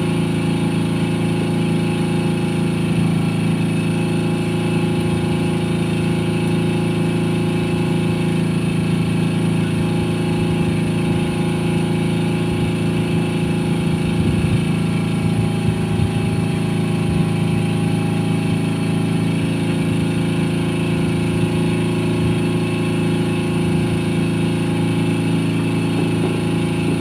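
An engine aboard a small fishing boat running steadily at idle, a low even hum that does not change.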